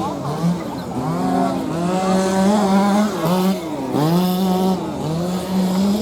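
Radio-controlled model car's motor revving up and down, its pitch dipping and climbing back about once a second.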